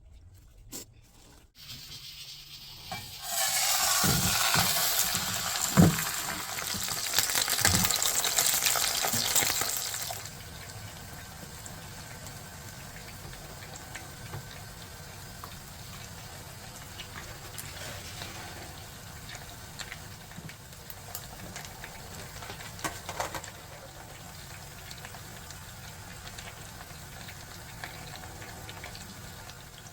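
Water running from a kitchen tap for about seven seconds, with a few knocks, then a quieter steady hiss.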